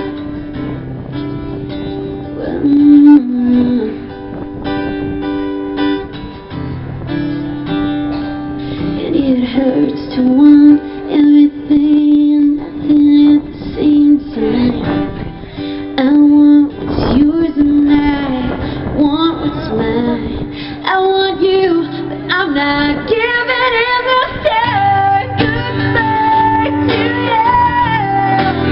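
Live music: an acoustic guitar played with a woman singing over it, heard from the crowd in front of an open-air stage.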